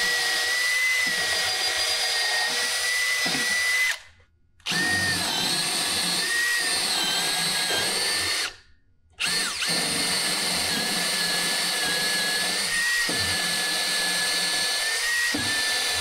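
Makita cordless drill boring a hole through a 2x4 wooden leg and platform frame, run at a steady whine in three long pulls of the trigger with brief stops about four and eight and a half seconds in.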